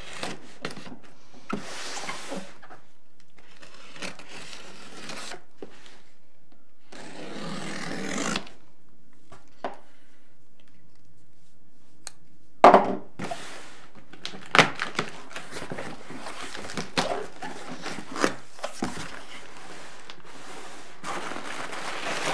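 A cardboard box being opened: scraping and tearing along its packing tape, a sharp knock about halfway through, then a run of clicks, knocks and rustling as the flaps are pulled open and packaging is handled.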